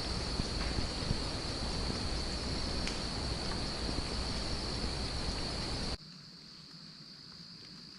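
Crickets chirping in a steady high-pitched chorus. A low rumbling noise runs under them and stops abruptly about six seconds in, leaving the crickets alone.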